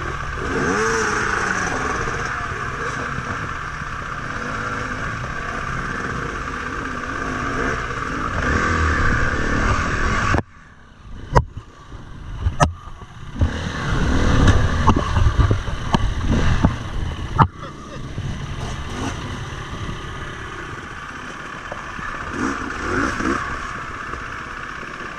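Off-road motorcycle engines running on a rocky climb, the nearest a KTM 350 EXC-F four-stroke single. About ten seconds in the engine sound cuts out abruptly. A few sharp knocks and clatter follow, then the engines run and rev hard again before settling back to a steady run.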